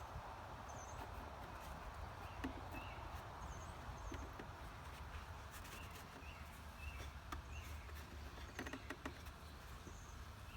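Outdoor background hiss with small birds chirping intermittently, and a few light wooden knocks and clicks near the end as hive frames are handled and pushed into a nuc box.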